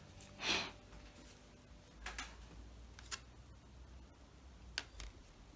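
Faint handling noises at a modelling bench: a short scuff about half a second in, then a few light clicks as parts and tools are moved.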